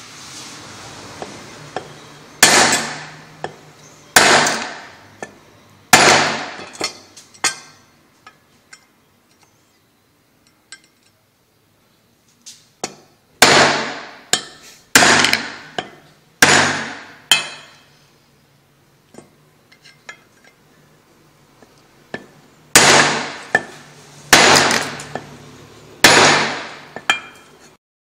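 Hammer blows on a steel punch set in the bore of an automatic washing machine's transmission housing: about a dozen sharp metallic strikes in three bursts, each ringing and dying away over about a second, with quiet pauses between the bursts.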